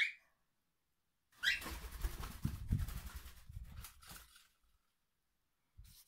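Cockatiel giving a short rising whistle, then another rising call about a second and a half in, followed by about three seconds of rapid fluttering wingbeats with low thumps as it flies, fading out.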